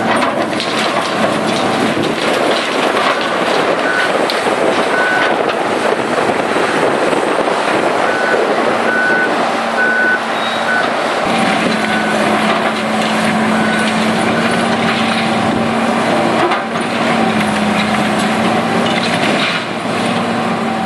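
Large hydraulic demolition excavator running, its diesel engine a steady hum under the crunching and clatter of brick and masonry being broken apart and falling. A backup alarm beeps about once a second through the middle stretch, and the engine grows louder about halfway through.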